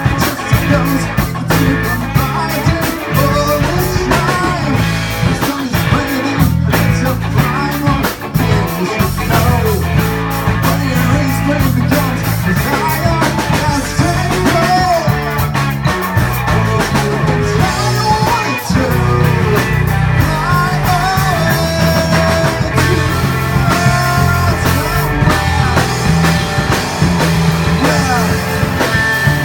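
Rock band playing live, loud and steady: electric guitar, bass guitar and drum kit.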